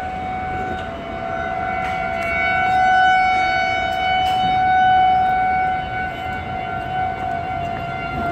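Outdoor civil-defense warning siren sounding a steady wail during a test: one held pitch with its loudness slowly swelling and fading, loudest about three and five seconds in.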